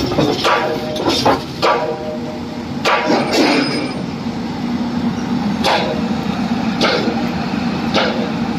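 Heavy construction machinery digging soil out of a bridge pillar: an engine running steadily under repeated loud metal clanks and knocks, several close together in the first two seconds and again near the end.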